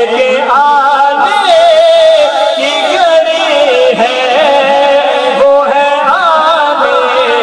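Men singing a naat in long, wordless held notes that waver and glide from pitch to pitch.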